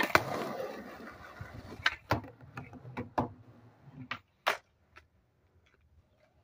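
A Tony Hawk 31" popsicle skateboard: the tail snaps on concrete, the wheels roll on rough concrete for a couple of seconds, then several sharp clacks as the board hits and rides a low skate box.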